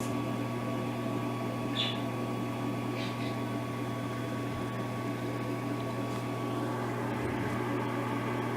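Steady low mechanical hum with a faint constant whine, and two brief high chirps about two and three seconds in.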